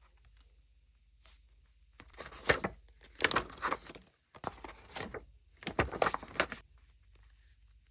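Packaging being handled and torn open during an unboxing, crinkling in several bursts from about two seconds in until near the end.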